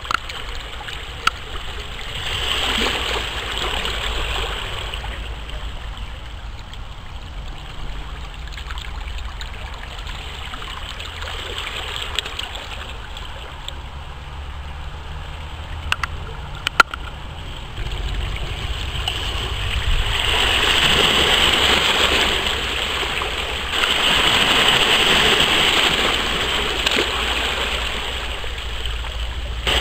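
Small waves lapping and washing over rocks and seaweed at the water's edge, a steady wash that swells louder a few seconds in and again for several seconds late on, under a low rumble, with a few sharp clicks.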